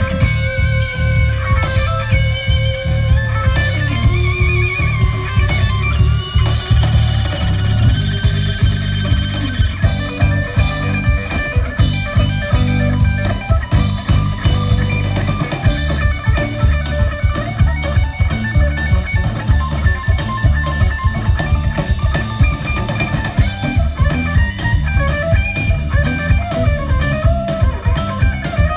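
Live rock band playing: electric guitar lead over bass guitar and a drum kit keeping a steady beat. The guitar holds long notes with vibrato in the first few seconds, then plays busier lines.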